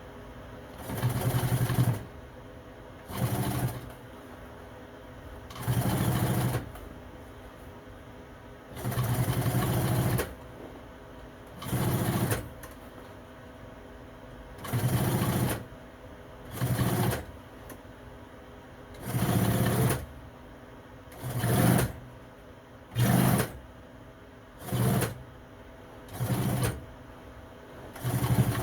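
Sewing machine stitching seat upholstery in short runs of about half a second to a second and a half each, about thirteen runs with pauses between them, over a steady low hum.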